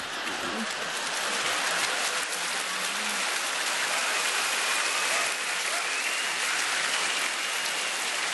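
Large audience applauding; the clapping swells about a second in and then holds steady.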